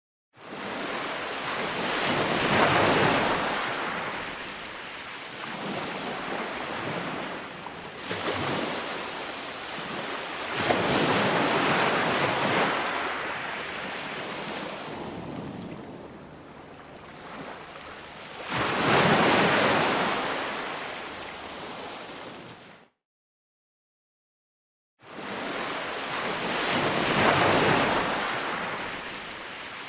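Ocean waves breaking and washing up on a shore, four surges about eight seconds apart, each swelling and then fading. The sound drops out to complete silence for about two seconds near the end, then comes back.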